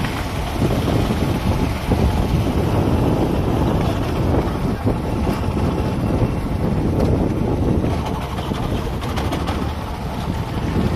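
Wind buffeting the phone's microphone while moving along a road, a dense, steady low rumble with no clear engine note.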